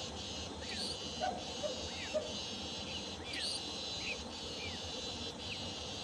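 Young nightjar chick calling with short high chirps that fall in pitch, about six of them spaced roughly a second apart. Behind them runs a steady high insect drone that breaks off briefly about once a second.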